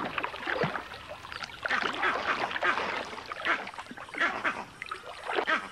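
Shallow muddy water splashing and sloshing irregularly as crocodiles thrash while tearing at an impala carcass.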